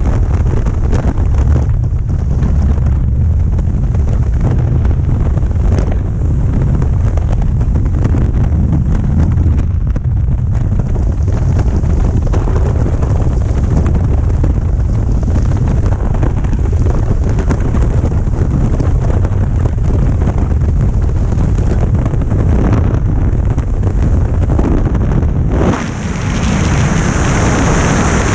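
Freefall wind blasting over the camera microphone, a loud steady low rumble. Near the end it dips for a moment and turns to a brighter, higher hiss.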